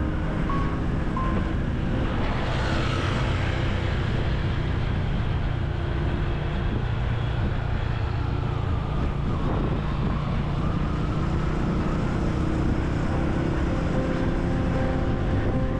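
Motorcycle running steadily at road speed, with road and wind noise. A falling whoosh about two to three seconds in and again near ten seconds sounds like traffic passing.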